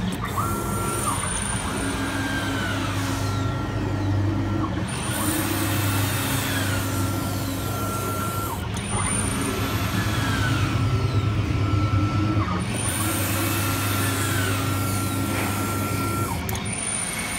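CNC glass cutting machine's drive motors running as the cutting head travels over the glass, a whine that rises and falls in pitch again and again, about every four seconds, over a steady hum and a steady high tone.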